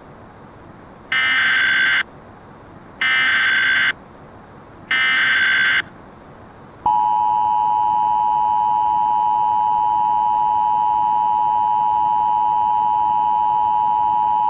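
Emergency Alert System alert tones: three short bursts of SAME header data tones, each just under a second long and about a second apart, then, about seven seconds in, the steady two-tone EAS attention signal begins and holds.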